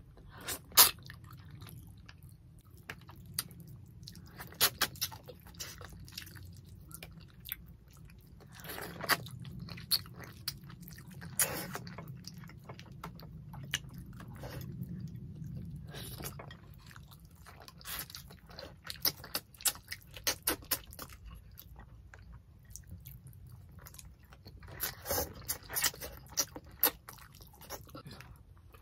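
Close-miked eating sounds of two people eating tilapia in coconut milk and rice by hand: chewing, lip smacks and sucking on fingers and fish bones, with irregular sharp wet clicks.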